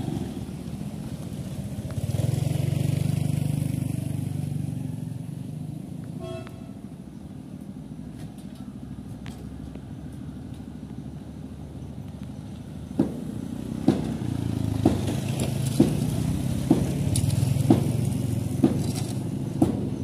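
Small motorcycles riding over the bridge deck, one passing close and loud about two seconds in. From about two-thirds of the way through, sharp knocks about once a second from a worker's long-handled tool striking broken concrete rubble, over the engines of more approaching motorcycles.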